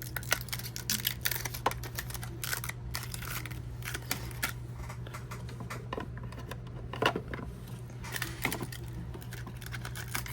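Small plastic toy-fridge parts being handled and fitted together: scattered light clicks, taps and rustles, with a steady low hum underneath.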